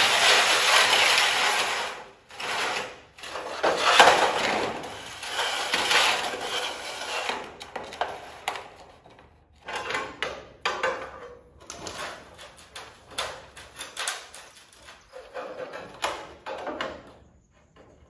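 Metal rain gutter sections scraping against each other in long swells as one is slid into the other. From about halfway, a run of short, irregular clicks and scrapes as a hand tool works the gutter's end to fit the joint.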